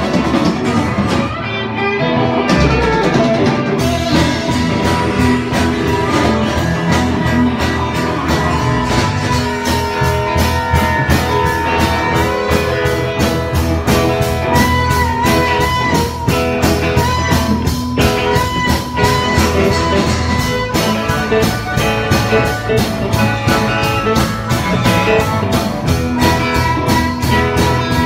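Live blues-rock band: electric guitar over a steady drum beat. From about ten seconds in, an amplified harmonica played into a cupped microphone comes in with long held, bending notes.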